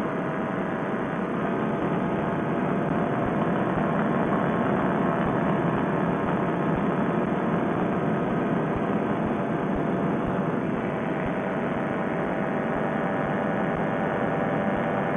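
Paramotor trike's engine and propeller running steadily in cruising flight, a continuous drone that swells slightly in the middle. It is heard through a Bluetooth headset microphone, so it sounds muffled with no treble.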